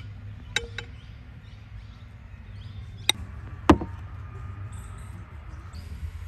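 A ceramic bowl handled on a table: a couple of light clicks early, then two sharp knocks about three seconds in, the second the louder, as the bowl is set down.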